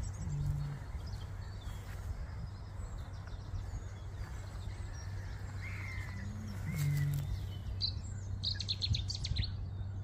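Eurasian bittern booming twice, about six seconds apart: each boom is a deep, short hoot, led in by a brief rising intake note. Small birds chirp and sing over it near the end.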